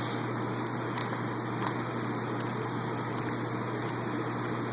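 Faint, irregular clicks of a Rubik's Cube's faces being turned, over a steady background hum and hiss.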